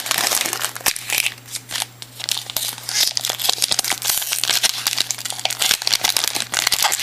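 Shiny wrapper of a trading-card pack crinkling as it is torn open by hand, a dense run of quick crackles with a short lull about two seconds in.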